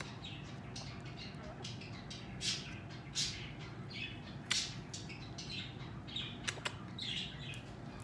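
Soft close-up sounds of a woman kissing and nuzzling a yellow-naped Amazon parrot: about a dozen short, soft, hissy sounds scattered through, with a few sharp clicks among them.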